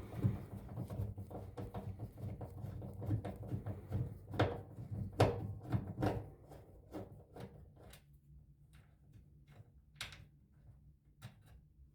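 Clicks, knocks and rattles from screws being undone and the plastic drawer housing of a washing machine being handled. Dense at first, they thin out to scattered single clicks in the second half.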